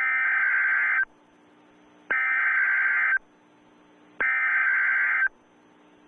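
Emergency Alert System SAME header: three bursts of digital data tones, each about a second long, with about a second's pause between them and a faint hum in the gaps. This encoded header opens a Civil Danger Warning alert.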